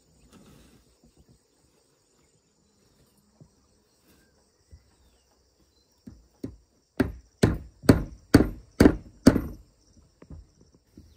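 A tool chopping or striking hard: two lighter knocks, then six heavy strikes at about two a second. A faint steady insect chorus hums underneath.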